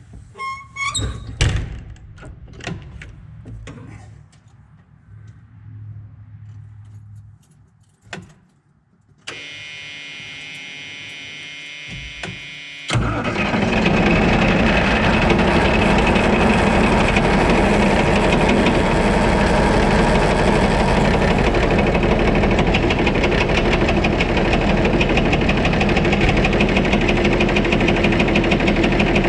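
A few clicks and clunks, then the starter cranks the White 2-155 tractor's Hercules six-cylinder diesel with a steady whine for a few seconds until it catches about 13 seconds in and runs loudly. It runs with a hammering knock from inside the engine that the owner suspects may be a rod.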